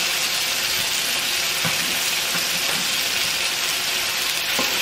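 Chicken pieces sizzling steadily as they fry in a non-stick frying pan. Twice there is a faint click as a metal spoon touches the pan while the pieces are moved about.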